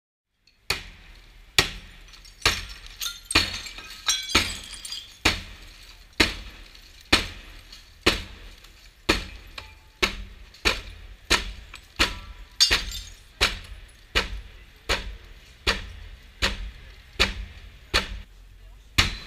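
A crowbar repeatedly striking SILATEC burglary-resistant window glazing in a forced-entry test. Each blow is a sharp crack and crunch of glass, about one a second, over and over.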